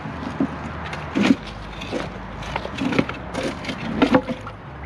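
Irregular knocks and scrapes of a heavy metal safe being hauled out of the water on a magnet-fishing rope.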